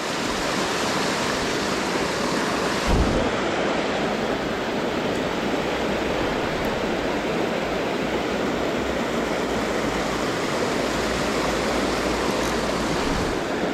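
Creek water rushing over rocks: a steady noise, with a low thump about three seconds in.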